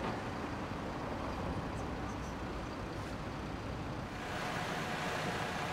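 City buses idling at a stop, with street traffic noise; the sound grows a little louder about four seconds in.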